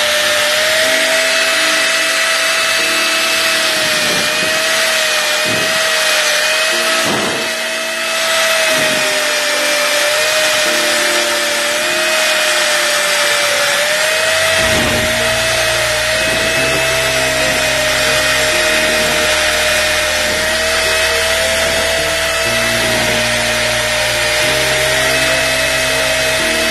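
Electric angle grinder running with a steady whine as its abrasive disc grinds rust and old paint off a steel motorcycle side stand. The pitch wavers slightly as the stand is pressed against the disc.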